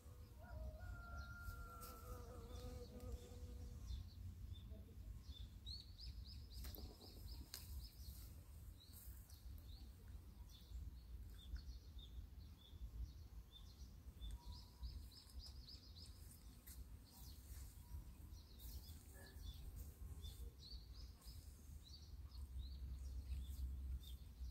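Faint small birds chirping in quick runs of high notes, several times over, above a low steady rumble.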